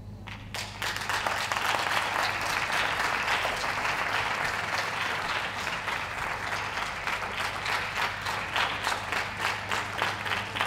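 Audience applauding, starting about half a second in and thinning into more separate claps toward the end.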